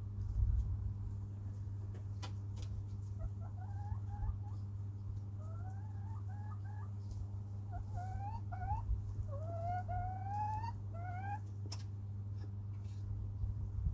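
Chicken calling in a run of short rising notes, then a few longer rising calls near the end, over a steady low hum, with a few faint clicks.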